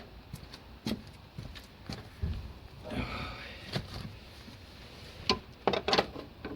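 Spanner and bolts clinking and knocking against the car's steel suspension parts as the front-end bolts are fitted and tightened: scattered sharp metallic clicks at an uneven pace, loudest in a quick cluster near the end.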